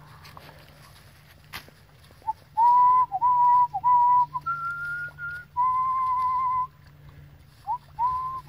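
A person whistling a short tune, starting about two seconds in. It is a run of clear notes, most on about the same pitch, with a few higher notes midway and one longer held note.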